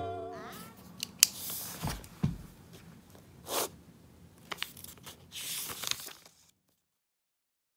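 Paper handling and a pen scratching across a notebook page: a handful of short rustling, scratchy strokes with a sharp click about a second in.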